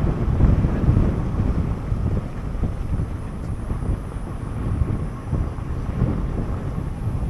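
Wind buffeting the microphone outdoors: a loud, uneven low rumble that rises and falls in gusts.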